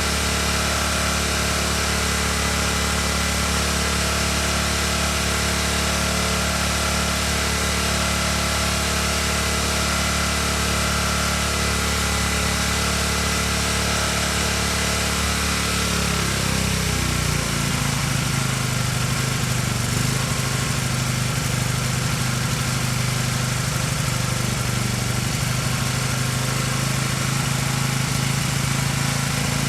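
Briggs & Stratton small engine on a Karcher pressure washer running steadily. About halfway through, its note shifts and settles at a different steady pitch.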